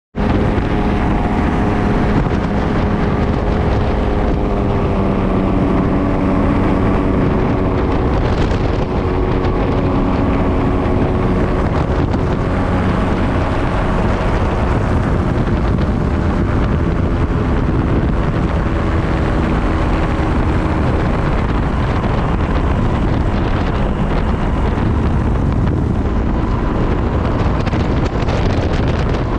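Flexwing microlight trike in flight: its engine and propeller run steadily under heavy wind rush on the microphone. The engine note shifts slightly in pitch now and then.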